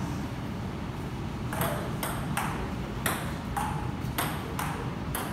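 Table tennis rally: the ball clicks sharply off the bats and the table about twice a second, starting about a second and a half in.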